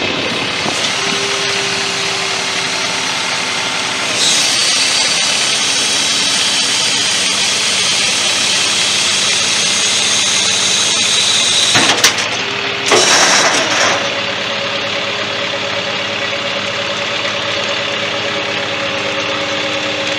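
Paccar PX-6 inline-six diesel of a 2012 Peterbilt ramp truck idling steadily. A high-pitched whine joins about four seconds in and stops about twelve seconds in, followed by a couple of sharp knocks and a brief louder burst.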